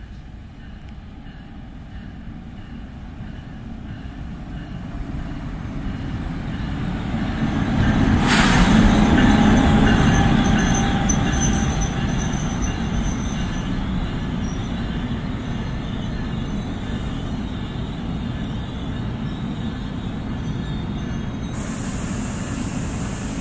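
NJ Transit train approaching and running past on the rails, getting louder to a sudden rush about a third of the way in. The rolling rumble then carries on steadily with a faint high wheel squeal, and a high hiss joins near the end.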